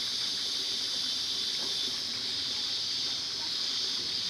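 Steady, high-pitched hiss that holds unchanged throughout, with fainter low noise beneath it.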